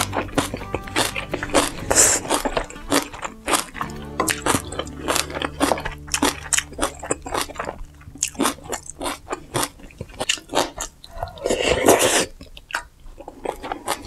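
Close-miked chewing of spicy ramyeon noodles, with many irregular wet crunches and bites. A louder, longer slurp of noodles comes near the end.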